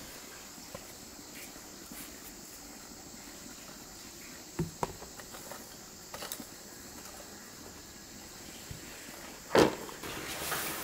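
Steady high-pitched drone of forest insects, with a few light knocks about halfway through and a louder thump near the end.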